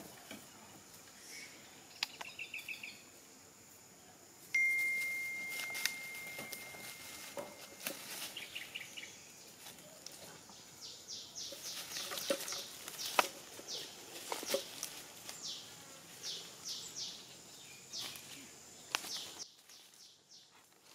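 Forest ambience: a steady high insect drone, birds chirping in quick repeated runs through the second half, and a single held whistle-like tone for a few seconds starting about four seconds in. Scattered light crackles come from dry leaf litter as the monkeys move.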